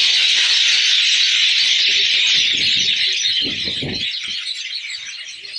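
Dense chatter of many birds, likely a dusk roosting flock in the trees, loud and fading over the last couple of seconds, with a few low thumps about three and a half seconds in.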